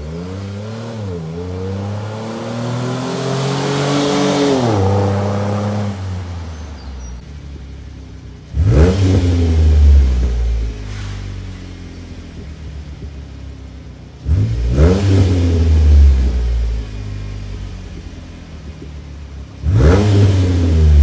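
Jeep JK Wrangler engine heard through a dual-exit, straight-through sports rear muffler. First it accelerates, its note climbing with a brief dip about a second in before dropping off. Then, standing, it is revved sharply three times, each rev falling back to a steady idle.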